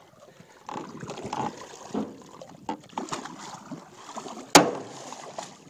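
Water splashing and sloshing as a large Pacific halibut thrashes at the surface beside the boat, with one sharp, loud knock about four and a half seconds in.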